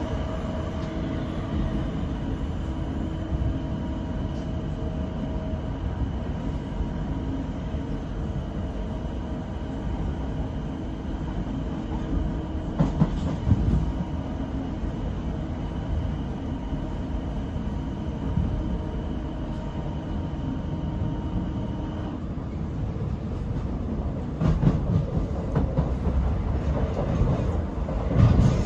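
Class 455 electric multiple unit running along the track, a steady rumble of wheels on rail with a faint steady whine that stops about two-thirds of the way through. There are a few louder knocks and rattles about halfway and again near the end.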